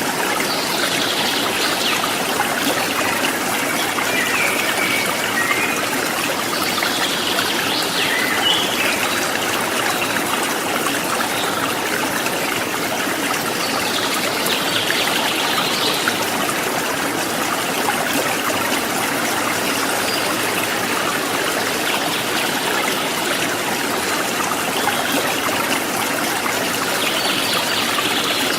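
A rocky stream flowing steadily, the water rushing and trickling over stones.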